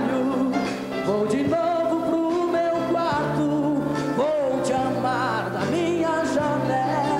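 A male voice sings a sertanejo ballad into a microphone over a live band, with bass and drums beneath, the long sung notes wavering in vibrato.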